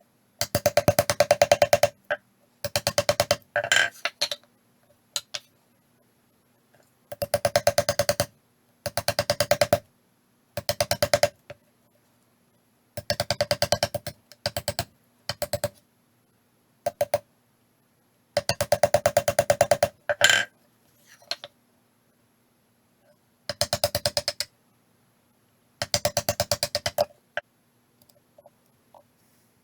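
A hand saw cutting wood in short runs of rapid strokes, each run lasting one to two seconds, with brief pauses between them.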